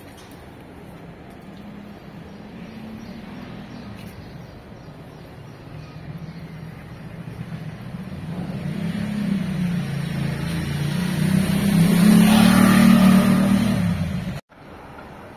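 A car driving along the street, its engine hum and tyre noise growing steadily louder as it comes close. The sound is cut off suddenly near the end.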